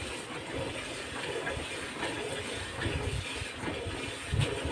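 Milk squirting in repeated streams into a metal pail as a cow is milked by hand, with one louder knock near the end.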